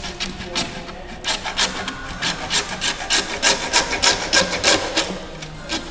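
Handsaw cutting through a faux brick wall panel, a quick run of rasping back-and-forth strokes, about three a second, getting louder in the second half.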